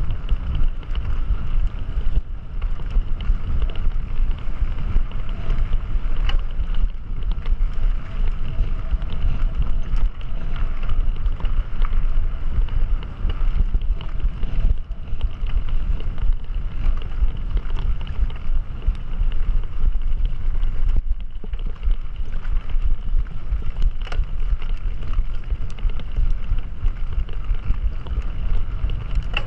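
Wind buffeting the microphone and a steady low rumble, as from a camera carried on a mountain bike riding over trail.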